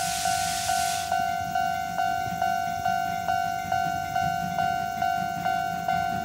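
A railway level-crossing alarm rings steadily, a ding a little over twice a second. Under it, the approaching steam locomotive hisses until about a second in, then runs on as a low rumble.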